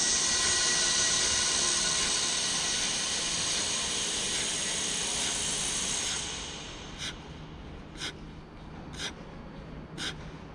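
A loud steady hiss with faint steady tones in it, which drops away about six seconds in. After that come short, sharp exhaled breaths about once a second: a man puffing through push-ups.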